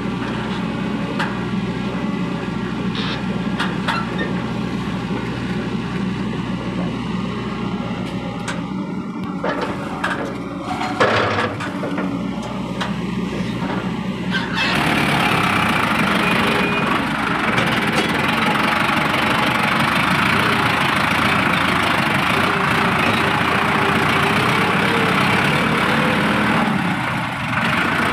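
Diesel excavator engine running steadily while loading soil into a tractor trolley, with a few knocks about 9 to 11 seconds in. About halfway through the sound grows louder, with more hiss.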